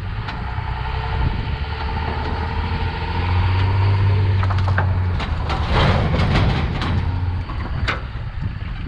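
Pickup truck engine pulling a gooseneck trailer forward, its low hum growing louder about three seconds in. Around the middle, a loud scraping and clattering as the grain tank slides off the tilted trailer deck onto the ground, followed by a few sharp knocks.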